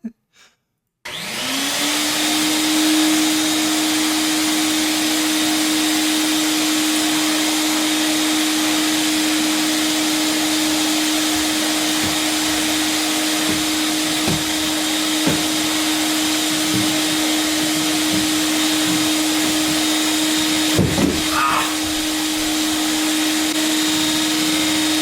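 An older vacuum cleaner with a hose switching on about a second in: its motor spins up to a steady whine and keeps running. A few short knocks come partway through as it is handled.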